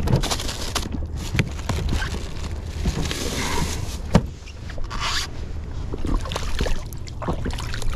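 Handling a plastic cooler box: a fish is laid inside and the lid is shut with knocks, clicks and scraping, one sharp knock about four seconds in. Near the end a hand splashes in the seawater. A steady low rumble runs underneath.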